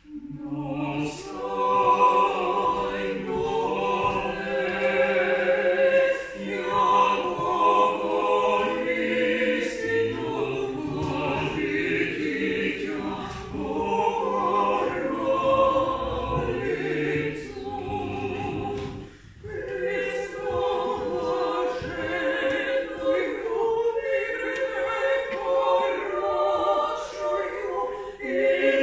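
Small mixed vocal group of three women and a man singing a cappella in parts, led by a conductor. The singing begins right at the start, with one brief break for breath about two-thirds of the way through.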